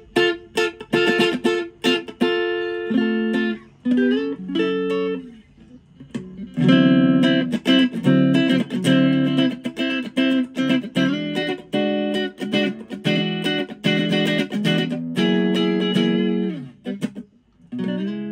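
Epiphone Les Paul SL electric guitar with ceramic single-coil pickups, played through an amp on a clean tone: picked single notes and double-stops, then ringing strummed chords from about six seconds in.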